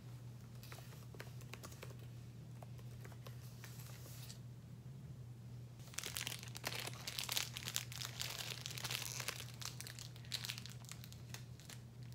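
Crinkling and rustling of handled packaging, quieter at first and then louder with many sharp crackles for several seconds, over a steady low hum.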